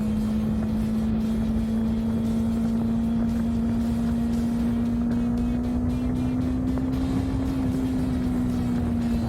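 Honda CB300R's single-cylinder engine running at a steady cruise, its note rising slightly about seven seconds in and then easing, over steady wind and road noise.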